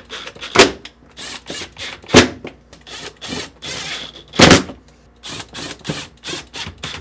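Cordless drill driver running in short bursts as screws are driven into a refrigerator's plastic evaporator cover, among many small clicks, with three loud sharp knocks about a second and a half to two seconds apart.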